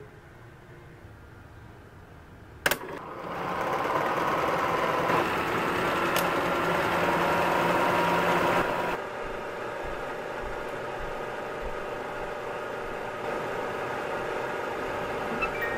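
A switch clicks about three seconds in, then a vintage film projector starts up and runs with a steady mechanical whir, growing louder over the next second. About nine seconds in the running sound drops to a lower level and carries on.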